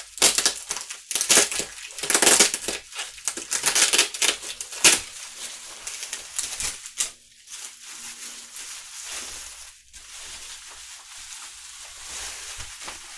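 Plastic packing wrap crinkling and rustling as it is pulled off and crumpled by hand: loud bursts through the first half, then softer rustling.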